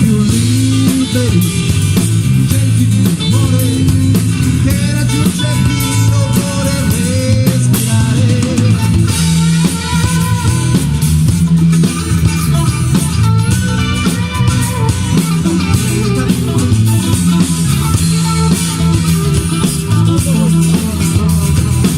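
Band music: guitars over bass and drum kit, with some singing.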